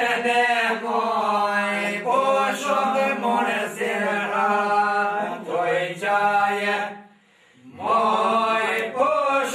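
Men singing northern Albanian two-part polyphony (dyzanshe): a wavering lead voice over a second voice holding a steady low drone. The singing breaks off for under a second about seven seconds in, then resumes.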